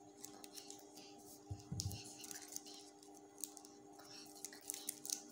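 Faint rustling and small clicks of black fabric and thread being handled while a flower's petals are stitched by hand, over a steady low hum, with one dull thump about one and a half seconds in.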